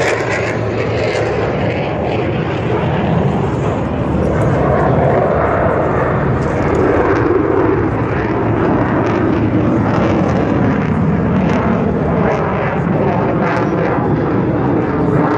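A military jet's engines running loud as it flies past overhead: a steady, dense rush that swells and shifts slowly in tone.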